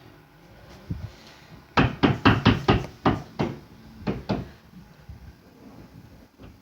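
Banging on a hard surface: one knock, then a quick run of about ten loud knocks at about four a second, tailing off into a few fainter ones.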